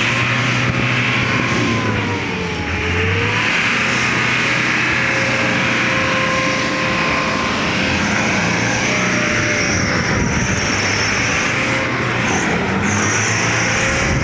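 Toyota pickup's engine revving hard and unevenly, its pitch rising and falling, as the truck strains to pull out of deep mud while being pushed.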